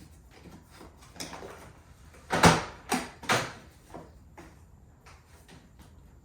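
A series of hard plastic-and-metal clunks and clicks from a Doona infant car seat stroller being handled. The loudest knock comes about two and a half seconds in, followed quickly by two more, then a few lighter clicks.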